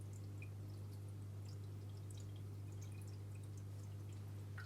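A steady low hum with a few faint, scattered small ticks.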